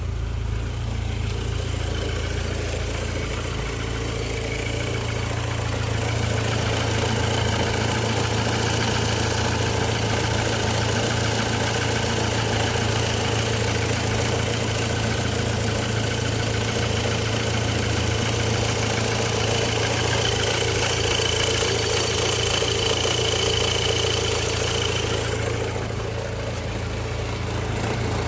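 MK5 Golf GTI's 2.0-litre turbo four-cylinder idling, with the newly fitted electric radiator fan running as a steady drone of rushing air. The fan running is a good sign that the replaced cooling fan works. The rushing air noise falls away sharply a couple of seconds before the end, leaving the engine's idle hum.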